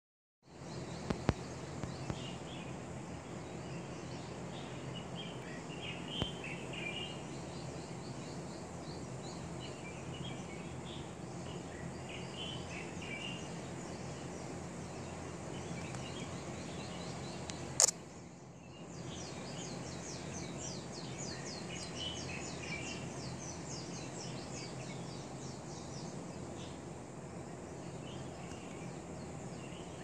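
Several songbirds singing and calling at dawn over a steady low hum of distant city noise, with short chirping phrases every second or two. About two-thirds of the way through, a single sharp click is followed by a fast run of high, rapidly repeated notes.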